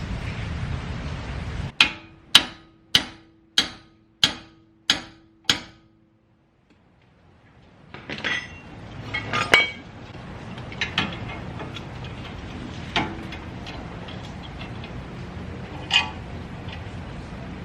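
Hammer striking the welded steel steering knuckle extension seven times, about one blow every 0.6 s, each with a short metallic ring, bending it so it mates flush with the spindle. After a pause, a few lighter knocks and clinks over a steady background noise.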